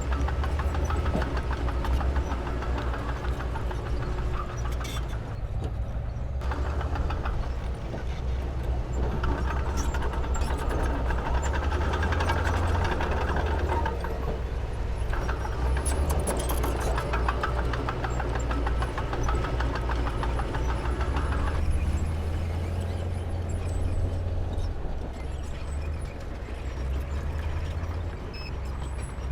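Heavy diesel engine of earth-moving machinery running under work, with a deep steady rumble and rapid firing beat; the engine note swells and eases several times as the load changes.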